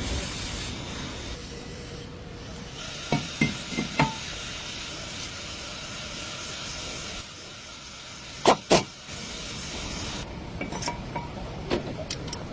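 A spray hissing for several seconds, with a few light metallic clicks, then two loud knocks close together. Lighter clicks follow near the end.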